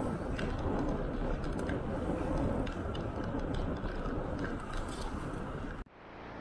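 Wind buffeting the microphone and road noise while riding, with a few faint scattered ticks; the noise cuts off abruptly shortly before the end.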